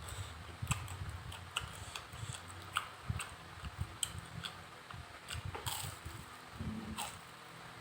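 A person chewing and eating food close to the microphone, with many small irregular wet mouth clicks.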